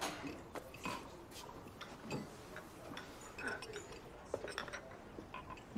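Quiet café background: scattered light clinks and taps of cups, saucers and cutlery.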